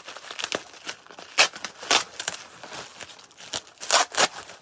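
Thin plastic wrapping being crinkled and pulled open by hand: irregular crackling with a few louder rustles and rips.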